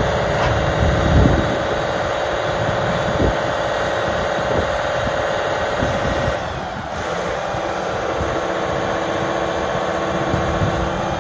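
Volvo A30F articulated dump truck's diesel engine running under hydraulic load as the dump body tips up and then comes back down. The engine note drops and changes about six and a half seconds in. Two low thumps come in the first few seconds.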